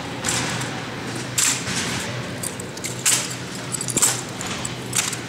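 Sharp slaps and knocks from a two-man exhibition rifle drill routine, about five over a few seconds with the crispest knock near the end, echoing in a large hall over a steady low hum.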